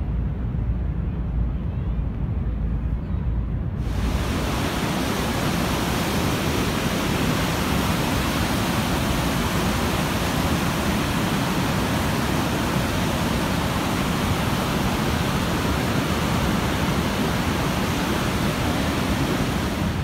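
A low rumble for about four seconds, then a sudden change to the loud, steady rush of the Niagara River's whitewater rapids.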